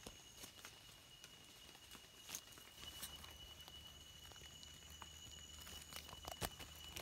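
Near silence broken by faint scattered clicks and rustles as a small knife cuts wild mushroom stems and hands work through dry leaf litter, with a faint steady high tone underneath.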